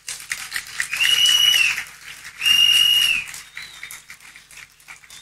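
Crowd applauding, with two long, shrill whistles from the crowd, about one and two and a half seconds in; the clapping dies away near the end.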